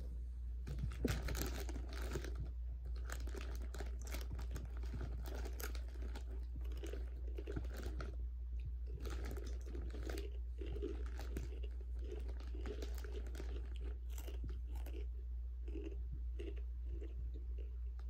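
Close-up crunching and chewing of Takis rolled tortilla chips, a rapid irregular run of crisp crunches, with the foil-lined chip bag crinkling now and then as a hand reaches in.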